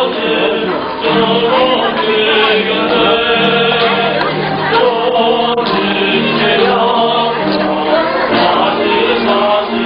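A group of voices singing a church praise song, holding long sustained notes.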